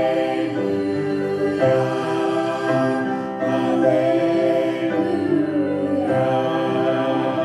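Gospel vocal group singing long held chords in harmony, the chord changing every second or two, at the drawn-out close of the song.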